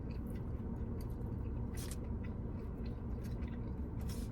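Close-up chewing of a mouthful of smoked turkey: small wet mouth clicks and smacks, the clearest about two seconds in and again near the end, over a steady low hum.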